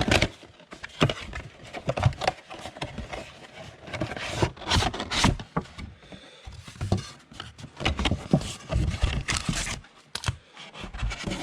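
A box of 2019 Panini Unparalleled football cards being opened and its packs handled: an irregular run of cardboard scrapes and rubs, with wrappers crinkling and tearing.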